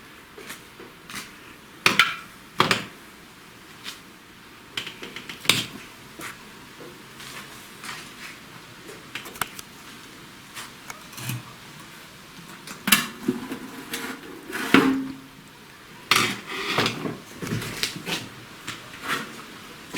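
Metal hand tools and steel engine parts clinking and knocking at irregular intervals while the oil pan is taken off the engine, with clusters of sharper clanks about two seconds in, near the middle, and toward the end.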